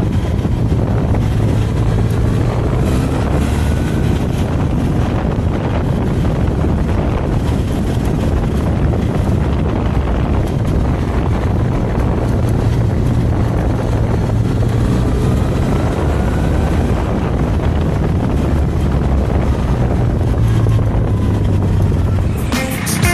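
Benelli TRK 502X parallel-twin motorcycle engine running steadily under way, with wind rushing over the microphone. The engine pitch rises twice as the bike accelerates out of bends.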